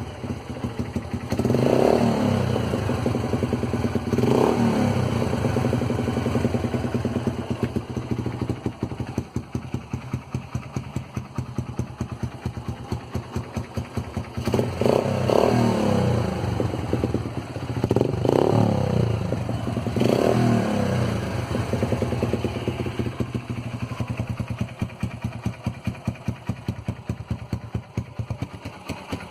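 Motorcycle engine through an aftermarket bullet-style ("bala") muffler, running with a steady pulsing exhaust beat and revved up and back down several times, mostly near the start and in a cluster in the middle. The engine has a clattery, sewing-machine-like mechanical noise that the owner suspects comes from the tappets.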